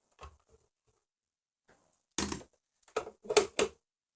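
A few sharp knocks and clatters from handling the opened receiver on the bench: one just after two seconds, then three quick ones near the end.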